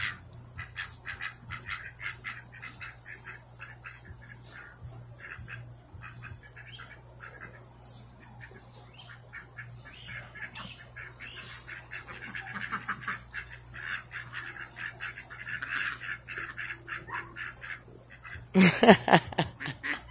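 A flock of domestic ducks quacking and chattering in many short, quick calls, with a louder burst of calls about a second and a half before the end.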